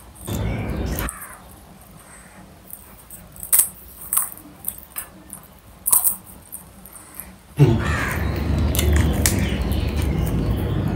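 Crows cawing, loudest in the first second, with wet chewing and mouth clicks between. A steady rushing noise starts suddenly about seven and a half seconds in.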